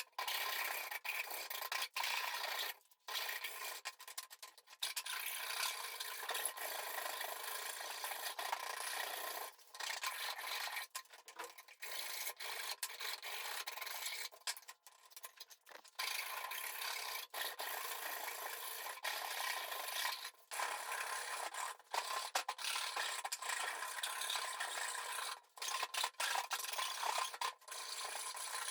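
Dry rasping and rubbing of a hand tool worked steadily over an axe, stopping briefly every few seconds before carrying on.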